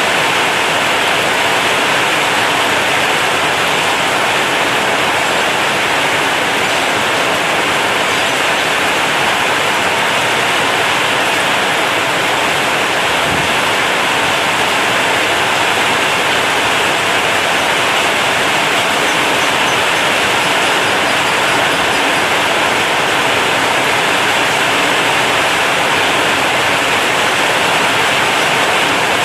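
Heavy rain pouring steadily onto a corrugated zinc sheet roof, a dense, even hiss that holds the same level throughout.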